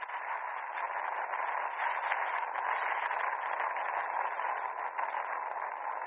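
Steady hiss, like radio static, with faint ticks scattered through it.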